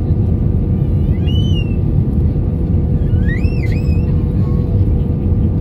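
Steady low rumble of an airliner's engines and airflow heard inside the cabin, with a faint steady hum. Two brief high squeaky sounds rise and fall over it, about a second in and again about three and a half seconds in.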